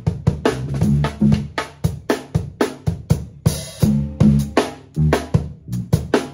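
Drum kit solo: quick runs of snare, bass drum and tom strikes, with cymbals ringing over them.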